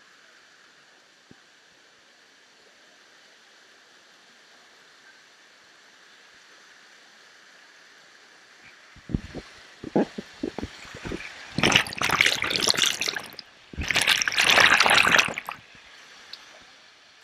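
Water rushing down rock steps in a waterfall, a faint steady rush at first. About nine seconds in come a few short knocks and splashes, then two loud bursts of splashing water, each about two seconds long, right against the microphone.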